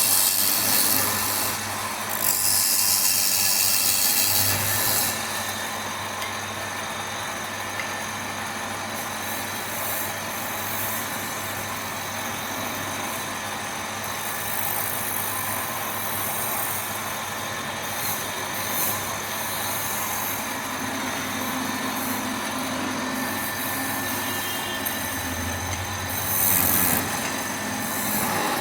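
Wood lathe running with a steady motor hum, while a tool works the spinning wood in hissing bursts, loudest in the first five seconds and again briefly around halfway and near the end.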